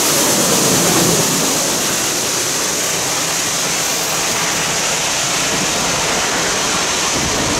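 Reading & Northern 425, a 4-6-2 steam locomotive, and its passenger train passing close at track speed: a loud, steady rushing of wheels on rails, swelling slightly about a second in as the engine goes by, then carrying on as the coaches roll past.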